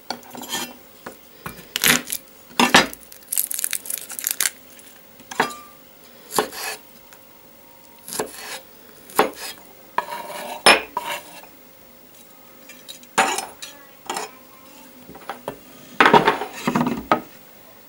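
Chef's knife cutting garlic cloves on a wooden cutting board: irregular knocks and scrapes of the blade against the board, spaced out rather than a fast chopping rhythm.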